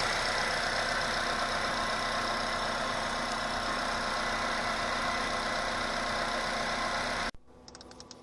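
2021 Jeep Wrangler JL's 2.0-litre turbocharged four-cylinder engine idling steadily while it warms up the oil before draining. It cuts off abruptly about seven seconds in.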